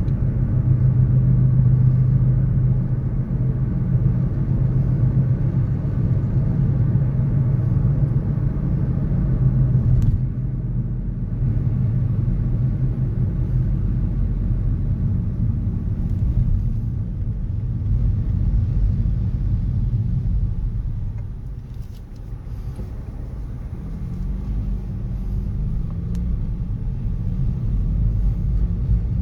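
City street traffic: a steady low rumble of car engines and passing vehicles. Near the end one engine rises in pitch, as a vehicle pulls away.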